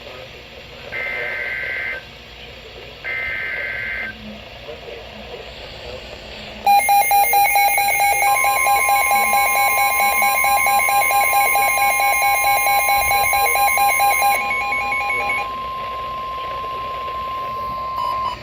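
NOAA Weather Radio SAME header: two full one-second screeching data bursts and the end of a third, the digital code that opens an emergency alert. About seven seconds in, a loud, rapidly pulsing electronic alert beep starts, likely from the Sage EAS ENDEC. A second later the steady 1050 Hz Weather Radio warning alarm tone joins. The beeping stops about fifteen seconds in, and the alarm tone cuts off just before the end.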